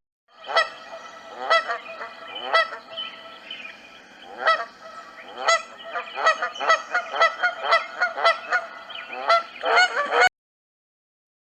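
Goose honking: a run of honks about a second apart at first, then coming faster, several a second, through the second half, cutting off abruptly about ten seconds in.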